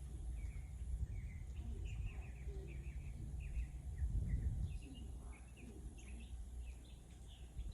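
Small birds chirping in quick, repeated short notes, over a steady low rumble that swells briefly about four seconds in.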